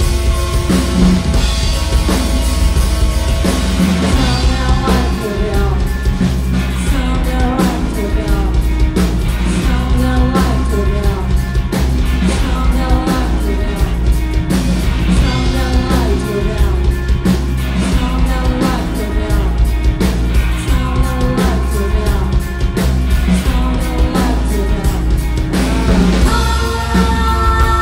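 Live rock band playing: distorted electric guitar and drum kit, with a singer's voice over the band.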